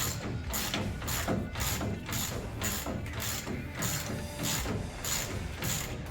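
Hand ratchet wrench clicking in quick back-and-forth strokes, about three a second, while tightening the bottom bolt of a car's front suspension.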